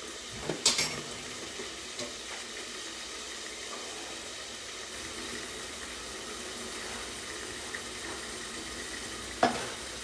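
Steady sizzle of chopped garlic, parsley, celery and peppers frying in olive oil in a sauté pan, with a sharp knock about a second in and another near the end.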